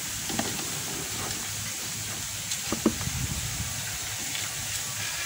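Faint handling sounds of a foam air filter in its plastic frame being pushed into a motorcycle's plastic airbox: a few light clicks and rubs, the clearest near three seconds in, over a steady background hiss.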